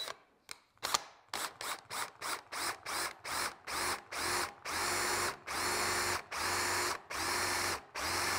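Cordless drill boring a hole through two clamped sheet-metal straps. The trigger is pulsed on and off, short quick bursts at first that lengthen to about half a second each, so the drill goes slowly for a smoother cut.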